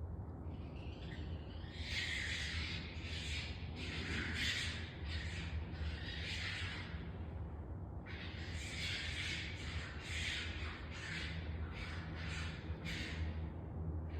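Harsh, screeching animal cries in two bouts of rapid repeated calls, starting about two seconds in and again about eight seconds in, over a low steady hum. The uploader takes them for raccoons fighting.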